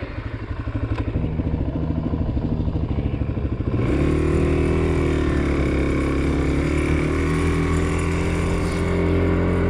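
Suzuki DR-Z400S single-cylinder four-stroke engine running at low revs with an even, rapid pulse. About four seconds in it becomes louder and steady at higher revs as the bike rides along.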